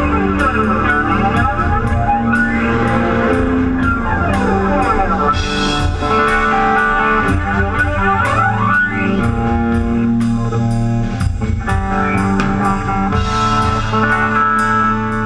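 Live rock band playing loud: electric guitar and bass over a Natal drum kit. The drums keep a steady beat, with cymbal crashes about five seconds in and again near the end.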